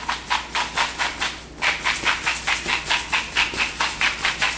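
Hand-twisted sea salt grinder crunching salt in quick, even rasps, about five or six a second, getting louder about one and a half seconds in.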